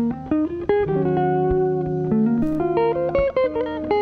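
Layered chillout guitar-loop music: a plucked guitar melody moving note by note over held chords and low bass notes.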